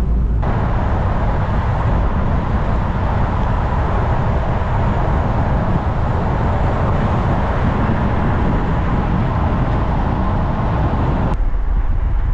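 Steady engine and road noise of a motor vehicle driving, with an abrupt change in the sound about half a second in and again near the end.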